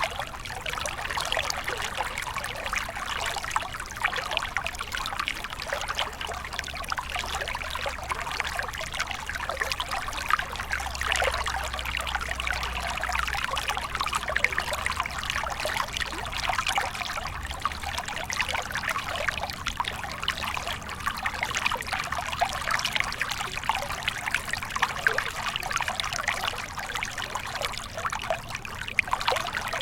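Small stream flowing steadily, water trickling and splashing over stones.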